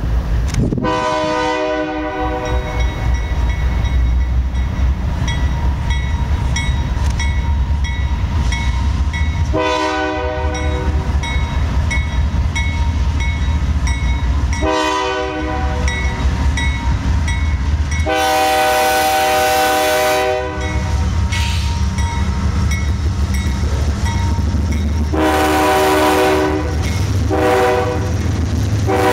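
CSX freight diesel locomotives passing close by with a heavy engine rumble, sounding a multi-chime air horn in the grade-crossing pattern: long, long, short, long, then starting the pattern again near the end. A rapid ringing goes on in the background.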